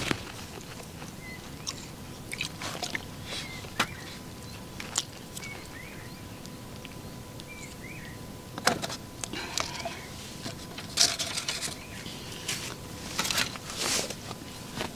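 Small clicks, knocks and rustles of food and utensils being handled at a camp table while someone eats, busier in the second half. Faint short bird chirps are heard now and then in the first half.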